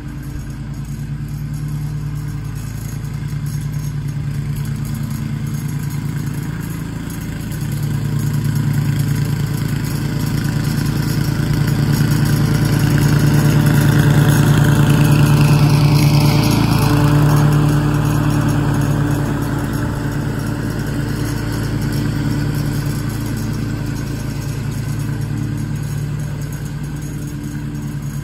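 Toro TimeMaster walk-behind lawn mower engine running steadily under load while cutting grass, growing louder as it comes close about halfway through and fading as it moves away again.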